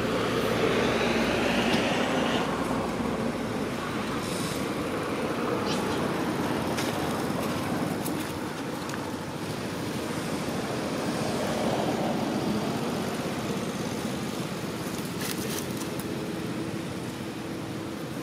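Steady rushing outdoor background noise that swells and fades slowly, with a few faint clicks.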